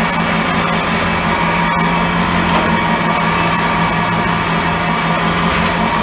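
Boat engine running steadily under way, a constant low drone, over the rush of water along the hull.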